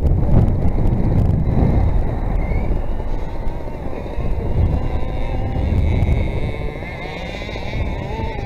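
Two-stroke petrol engine of a large-scale RC car running, heard from a camera on board, its pitch wavering up and down with the throttle over a heavy low rumble. The rumble eases after about halfway, and the engine's wavering whine comes through more clearly near the end.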